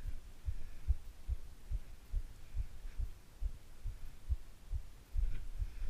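Low, muffled thumps, about two or three a second and fairly evenly spaced, with little else heard.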